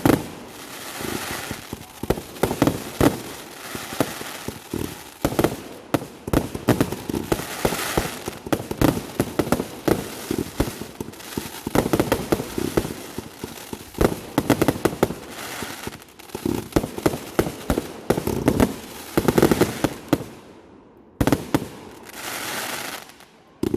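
Fireworks going off in a dense, irregular string of bangs and crackles. They die down about twenty seconds in, then one last crackling burst follows.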